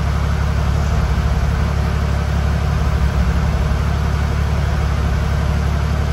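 Engine of an off-road trail vehicle running steadily, an even low drone with no revving.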